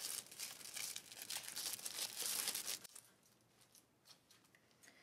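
Packaging rustling and crinkling as an enamel pin is handled and unwrapped, stopping about three seconds in.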